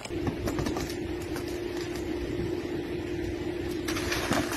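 Truck engine running steadily, with a constant hum over a broad rumble. It grows a little louder near the end.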